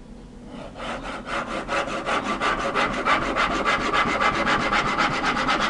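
Large kitchen knife sawing back and forth through a firm block of pressed hemp seed meal bound with honey, on a wooden cutting board. It makes a fast, even rasping that builds over about the first second and stops near the end.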